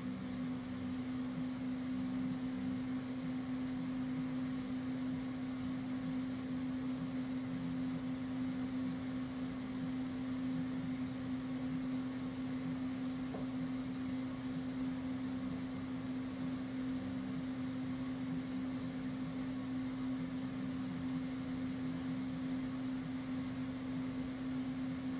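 Steady electric hum with an even fan hiss: a space heater running.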